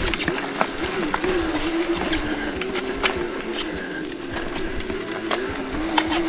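ENGWE X20 e-bike's electric motor whining under load on an uphill climb, its pitch wavering up and down with speed. Frequent clicks and rattles come from the bike jolting over the rough trail.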